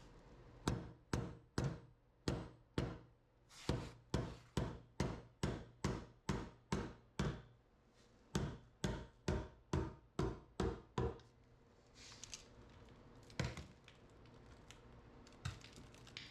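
A regular series of sharp knocks, about two to three a second, broken briefly twice, then a few scattered knocks near the end.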